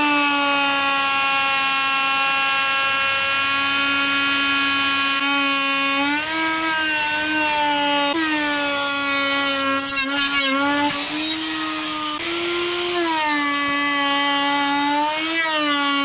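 Makita plunge router running at high speed while its bit cuts along the edge of a charred wooden plank: a steady high whine that sags in pitch several times in the second half as the bit takes the load, then comes back up.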